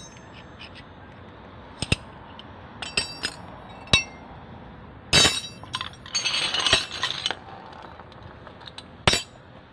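Steel combination wrenches clinking against each other and the pavement as they are picked up and laid together in a pile: a handful of separate clinks, with a quicker jangle of several about six to seven seconds in.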